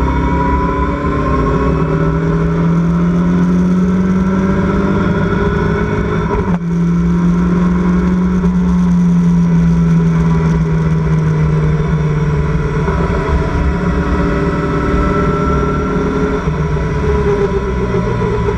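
Locost race car engine heard from the open cockpit, running hard at high revs. The note climbs over the first few seconds, cuts off briefly about six and a half seconds in, as at a quick gear change, then sags slowly over the next several seconds under a steady rush of noise.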